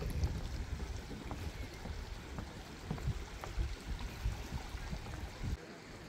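Outdoor ambience: a steady rushing noise over a low rumble, with a few faint knocks. The low rumble drops away suddenly near the end.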